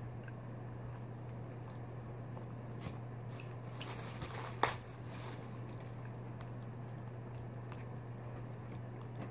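Eating sounds: biting and chewing with small clicks and rustles, and a sharp plastic crinkle about four and a half seconds in as a plastic cutlery wrapper is torn open. A steady low hum sits underneath.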